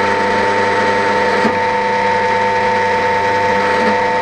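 Axminster Trade ATDP13B bench pillar drill running unloaded: a steady, really loud hum with a clear whining tone over it. The noise comes from the pulley cover, which the owner counts as a fault of this drill along with its vibration.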